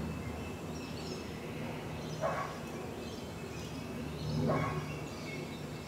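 Outdoor background with a steady low hum and two short animal calls, about two seconds in and again about four and a half seconds in.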